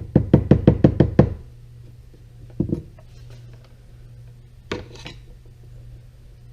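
A hammer taps a small flat-blade screwdriver to drive a new fuel line through a tight hole. There is a quick run of about eight sharp taps, then one knock a little later and another near the end.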